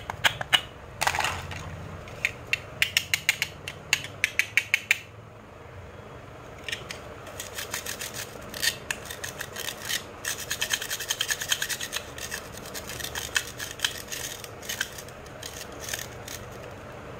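Plastic toy fruit and vegetable pieces joined with velcro, pulled apart and pressed back together: quick runs of sharp clicks and the rasp of the hook-and-loop pads tearing and catching, with hard plastic knocking.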